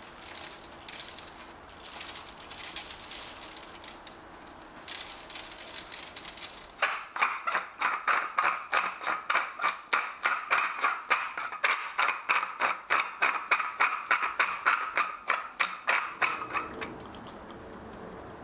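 Salt grains sprinkled over squash halves on a metal sheet pan, a few short hissing patters; then, about seven seconds in, a wooden pepper mill grinding with a fast, even run of crunching clicks, about four a second, that stops near the end.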